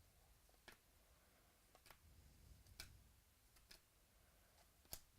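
Near silence, with about five faint, sharp clicks of trading cards being handled and set down one after another.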